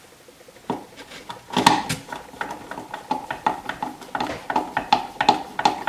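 Irregular clicks, knocks and rattles of a kitchen range hood's housing being handled and fitted back into place, with the loudest knock a couple of seconds in.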